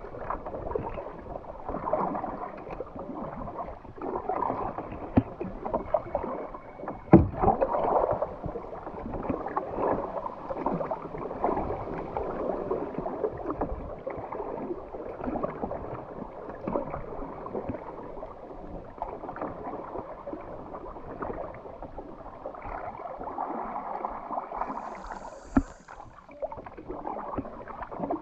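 Water splashing and gurgling around a kayak, with a sharp knock about seven seconds in and another near the end.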